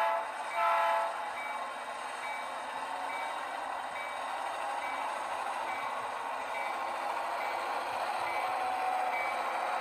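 Sound-equipped HO-scale Southern Pacific GP38-2 model diesel locomotive playing through its onboard speaker. The horn gives a short toot about half a second in. Then the bell rings steadily, about one and a half times a second, over the steady diesel engine sound as the model creeps along.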